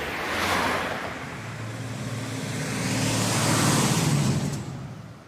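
Cars passing by on a road, engine and tyre noise swelling as each goes past, loudest about half a second in and again around three to four seconds, then fading away near the end.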